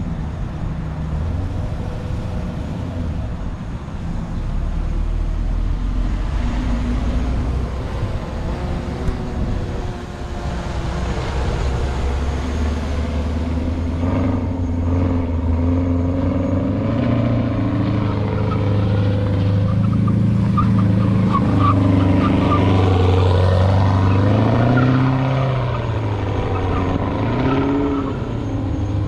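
Chevrolet Camaro's LT1 V8 engine running, fairly steady for the first half, then revved up and down again and again through the second half.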